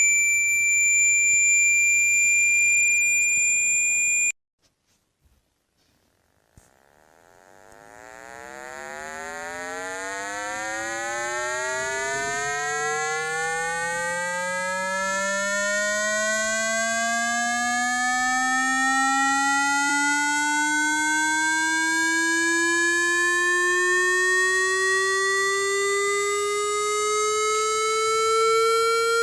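Electronic speaker water-ejection tones, played loud to vibrate water out of a phone or earphone speaker. A steady high-pitched tone cuts off suddenly about four seconds in. After a few seconds of near silence, a low tone fades in and rises slowly and steadily in pitch.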